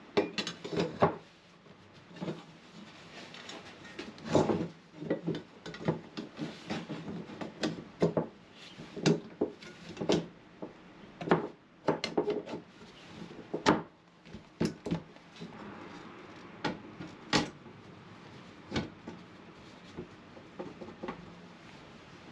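Irregular knocks, clinks and scrapes of hard objects being handled, busiest for the first fifteen seconds or so and then thinning out to a few scattered knocks.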